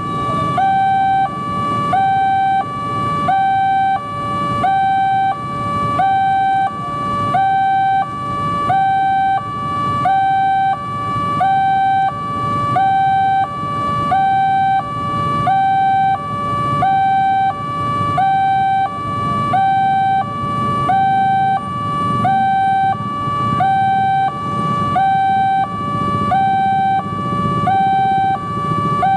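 Railway level-crossing warning alarm sounding an electronic two-tone signal that alternates high and low about once a second, warning that a train is approaching. Traffic rumble from waiting motorcycles lies underneath.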